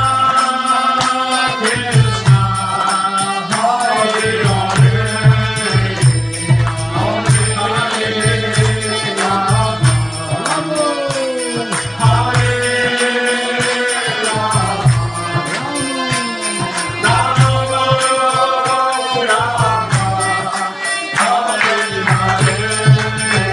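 Devotional kirtan: voices chanting a melody to a steady hand-drum beat, with small hand cymbals ringing in rapid time.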